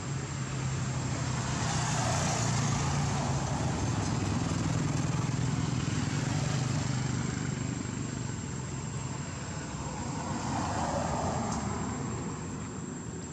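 Motor vehicle engine running nearby, its noise swelling as traffic passes about two seconds in and again near the end, with a thin steady high tone underneath.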